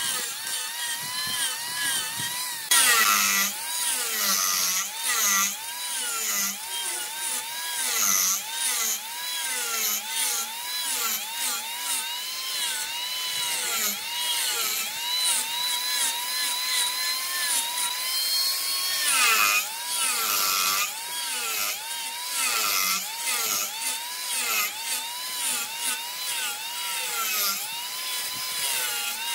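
Wood lathe running with a turning tool cutting the spinning wood. A high whine wavers up and down about once a second, with louder, harsher cutting noise a few seconds in and again about two-thirds of the way through.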